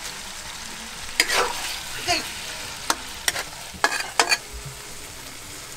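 Chopped meat and onions sizzling in a hot wok, with a steady hiss, while a spatula stirs them, scraping and knocking against the pan about six times.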